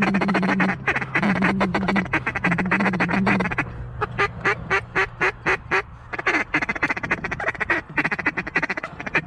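A crowd of mallards quacking and chattering. In the middle comes a run of about a dozen evenly spaced quacks.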